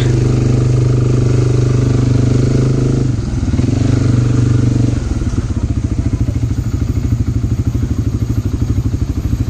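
ATV (quad bike) engine running steadily on a dirt trail, easing off about three seconds in, then settling from about five seconds in into a lower, evenly pulsing low-revs run.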